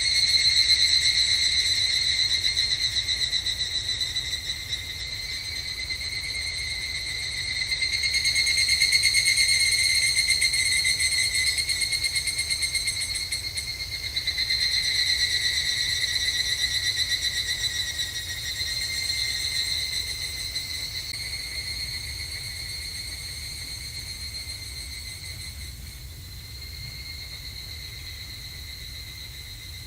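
Evening cicadas (higurashi, Tanna japonensis) calling, several overlapping in high, rapidly trilling phrases that swell and fade in waves every few seconds. They grow fainter over the last third.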